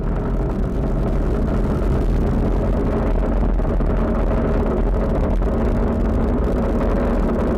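Falcon 9 rocket's first stage, its nine Merlin engines firing during ascent: a steady, loud, deep rumble. The first-stage burn is running normally.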